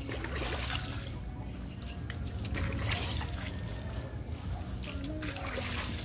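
Running water trickling and splashing steadily, with scattered small clicks and rustles over it.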